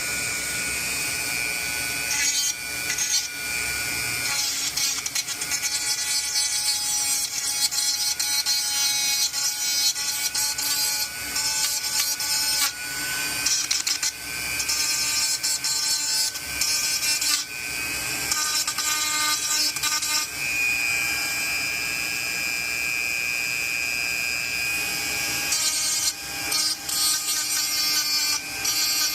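Small high-speed rotary tool whining steadily as its bit shaves down a metal terminal on a circuit board, the scraping rising and falling as the bit touches and lifts off.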